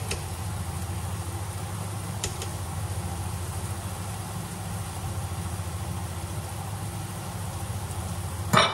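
Steady hum of a kitchen range-hood extractor fan running, with a short burst of metal clatter from the spätzle maker being handled near the end.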